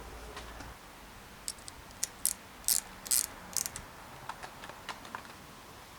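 A run of short, irregular metallic ratcheting clicks and rasps from hand work on a bicycle's front brake fitting, loudest a couple of seconds in and tailing off into lighter ticks.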